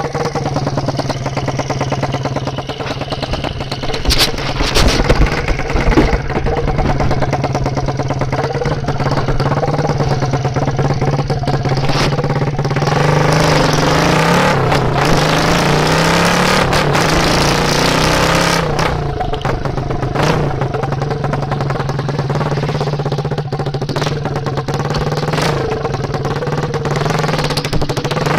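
Honda CD50S's small single-cylinder four-stroke engine running through an EIL exhaust with the silencer baffle removed, a straight-pipe sound, mostly idling with a steady low note. A few sharp knocks come around five seconds in, and about halfway through the revs are raised and rise for several seconds before falling back to idle.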